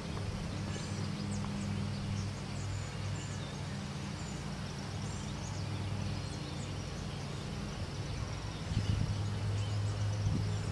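Steady low engine hum of a slowly moving vehicle, with faint bird chirps above it.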